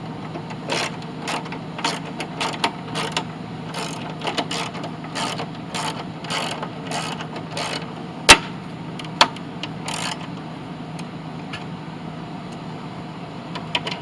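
A socket ratchet clicking in short bursts, about two strokes a second, as 12 mm bolts are run in. A sharp metallic clack comes about eight seconds in and another a second later, then the clicking thins out. A steady low hum sits underneath.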